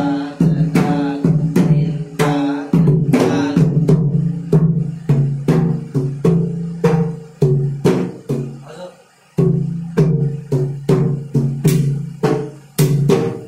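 Pakhawaj (two-headed barrel drum) playing a steady rhythmic pattern of hand strokes, about three a second, with ringing low and higher drum-head tones. The playing breaks off briefly about nine seconds in, then resumes.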